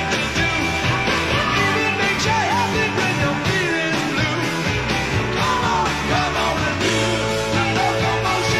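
A rock band playing live: electric guitar and drums over a steady bass line, with wavering, pitch-bending lead lines on top.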